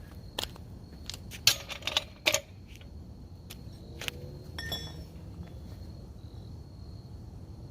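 A few sharp metallic clicks and clatters, with a short metallic jingle about halfway through, as tools or hardware are handled during the work on the car. A steady high insect drone continues underneath.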